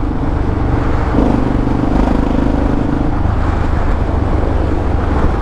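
Yamaha XT600E single-cylinder four-stroke running through an old Coyote aftermarket exhaust while the bike is ridden. The exhaust note is steady and loud, shifting slightly about a second in and again around three seconds.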